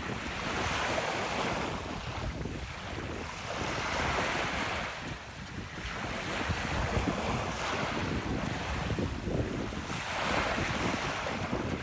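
Ocean surf breaking on a beach: a hiss that swells and fades every two to three seconds as each wave comes in. Wind buffets the microphone with a low rumble underneath.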